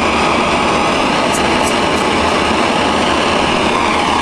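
Steady simulated jet engine and airflow noise from a Boeing 737-800 flight simulator's cockpit sound system: an even, unchanging rush over a low hum.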